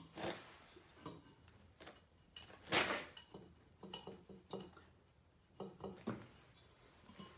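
Scattered light metal clicks and knocks as an LG washing machine's direct-drive rotor is worked onto its splined shaft and copper stator, with one louder brief noise about three seconds in.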